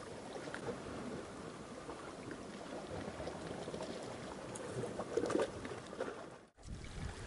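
Small sea waves lapping and washing against a rocky shore, a steady wash with a few faint clicks, cutting out briefly near the end.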